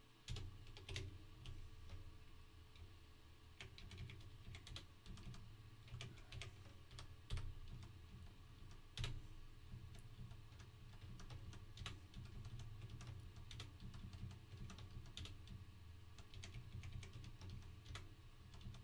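Faint typing on a computer keyboard: irregular key clicks, some in quick runs, over a low steady hum.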